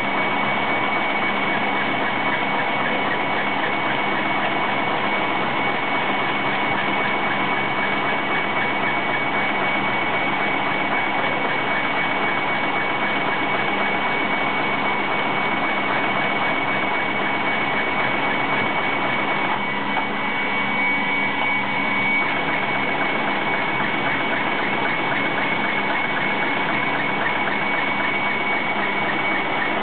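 CNC brush drilling and tufting machine running, its heads drilling and stapling bristle tufts into plastic cloth-brush blocks: a fast, even mechanical rattle with a steady high tone through it.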